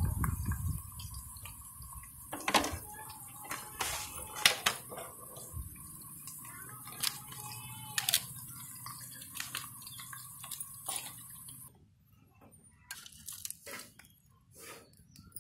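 A thin stream of liquid poured onto chilli-powdered fish pieces in a steel plate, then a hand mixing the wet pieces, with squelches and sharp clicks and knocks against the plate. It stops suddenly about twelve seconds in, and a few quieter knocks follow on a stone grinding slab.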